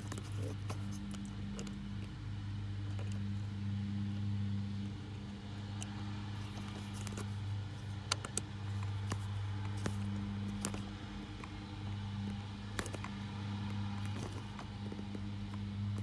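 Scattered small metallic clicks and clinks as screws are tightened into an ignition switch with a precision screwdriver, over a steady low hum.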